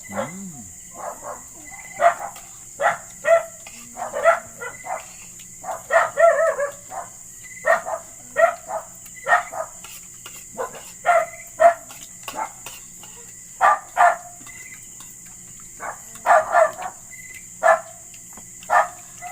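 A dog barking over and over in short, high-pitched barks and yaps, roughly one a second, some in quick pairs.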